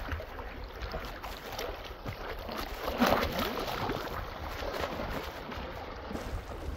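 River water rushing steadily, with one brief louder noise about three seconds in.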